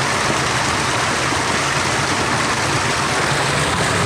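A small waterfall, a steady, even rush of falling water.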